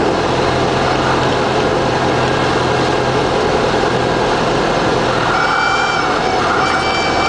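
Cessna 172P's four-cylinder Lycoming engine and propeller running at low power, heard inside the cabin with heavy rushing air noise. Near the end a steady high-pitched tone sounds twice, each time for under a second.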